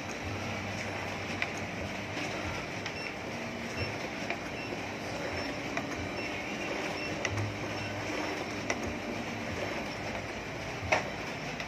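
Xerox Versant 3100 Press digital production printer running, a steady mechanical whir with light rattles and ticks as printed calendar sheets feed out into the output tray. One sharper click near the end.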